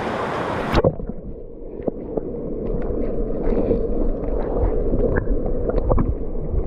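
A splash less than a second in as the action camera goes under the creek's surface. Then the muffled, bass-heavy rush of the creek heard underwater, with scattered clicks and pops.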